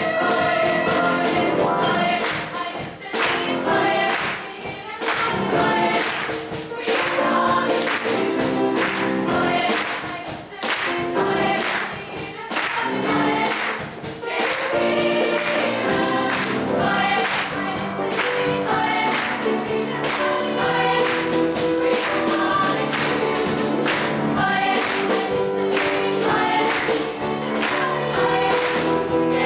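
Girls' choir singing in three upper-voice (SSA) parts, a lively rhythmic song with a steady percussive beat underneath.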